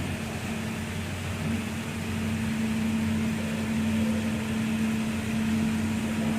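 HEMS 250 CNC programmable pattern sewing machine running with a steady hum, which gets a little louder about a second and a half in.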